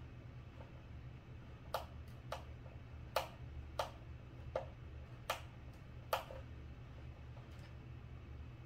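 A series of about seven sharp, short clicks at uneven intervals from small parts being handled by hand on a model airplane wing, over a steady low hum.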